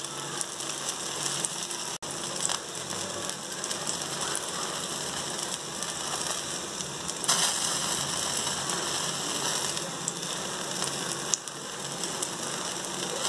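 Marinated paneer and onion pieces on a metal skewer sizzling and crackling in an open gas burner flame: a steady hissing sizzle, louder for a moment about seven seconds in.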